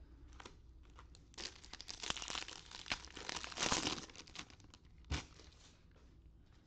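Wrapper of a Topps baseball card pack crinkling and tearing open for about three seconds, starting about a second and a half in. A single sharp tap follows about five seconds in.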